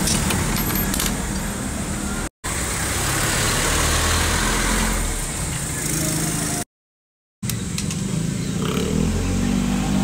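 Motor vehicle engines running steadily nearby. The sound cuts out suddenly twice: briefly about two seconds in, and for under a second past the middle.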